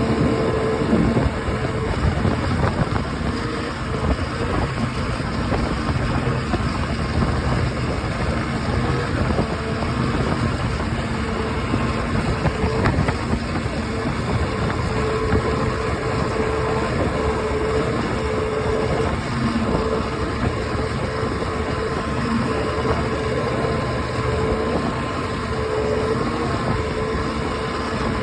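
OX66 two-stroke outboard motor running steadily, with a steady tone over the engine noise and the weird grinding noise the owner cannot trace: it is not the spark plugs, compression is good, and the prop is not slipping.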